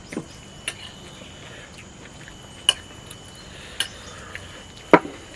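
Cutlery clinking against plates and dishes during a meal: about five separate sharp clinks, the loudest near the end.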